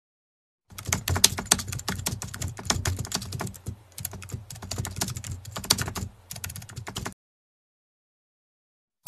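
Keyboard typing sound effect: a rapid, uneven run of key clicks that starts about a second in and stops about two seconds before the end.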